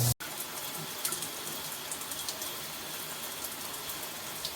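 Water spraying steadily from a NOSAME handheld shower head, a constant hiss with a few faint splashes.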